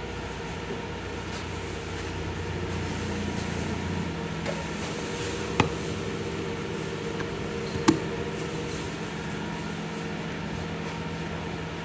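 A vehicle engine running steadily at idle. Two sharp clicks or knocks come through, one about midway and another a couple of seconds later.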